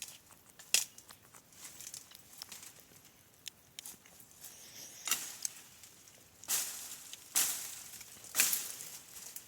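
Dry brush and twigs rustling and crackling as someone pushes through dense scrub, with a few sharp snaps and several louder rustles in the second half.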